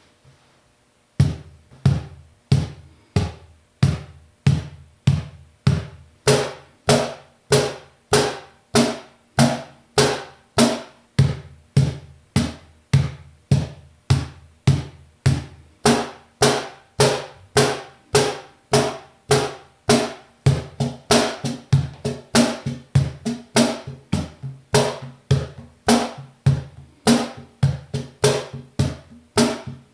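KEO Percussion standard cajón played by hand, starting about a second in: a steady beat alternating deep bass tones with brighter slaps that buzz through the box's snare wires. From about two-thirds of the way through the strokes come faster, with quicker in-between notes filling out the groove.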